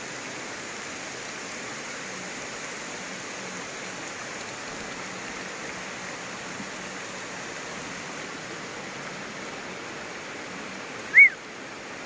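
Steady rain hissing on foliage and wet ground. One short, high chirp, rising then falling in pitch, stands out loudly about a second before the end.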